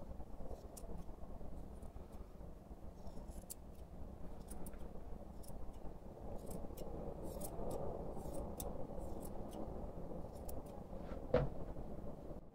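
Steel grooming scissors snipping through a poodle's curly fur, in quick irregular snips over a steady low hum. One louder knock comes near the end.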